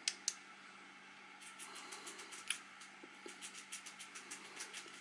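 Two sharp clicks near the start, then runs of light, rapid ticking with one more click in the middle, as the metal head and lens bezel of a small UltraFire XD-98H zoom flashlight are twisted and unscrewed by hand.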